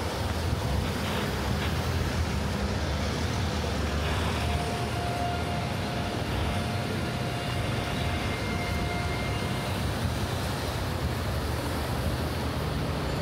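Street traffic: a steady low rumble of vehicle engines and tyres, with a faint whine held for a few seconds in the middle.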